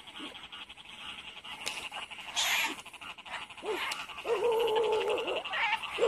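Field frogs calling: a steady, high, fast-pulsed chorus throughout, and one longer, lower call of about a second and a half starting a little after the midpoint, the loudest sound. A brief rustling swish comes about two and a half seconds in.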